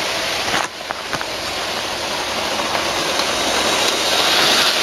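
Model train running on the track: a steady rolling rattle of wheels and motor. It dips briefly about a second in, then grows slowly louder.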